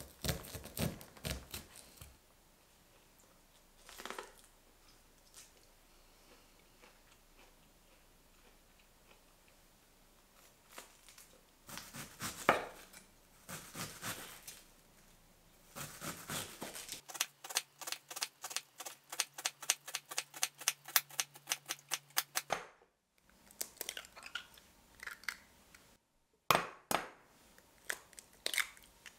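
Kitchen knife cutting on a wooden cutting board: scattered strokes slicing kernels off a corn cob, then a fast, even run of strokes shredding cabbage for about five seconds. Near the end, a few sharp cracks as an egg is broken on a glass bowl.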